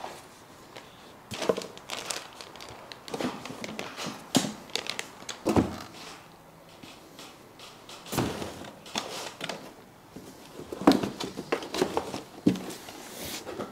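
Cardboard box and packaging being handled: irregular rustling and scraping of cardboard and paper with a few dull knocks as items are lifted out of the box and set down on a table.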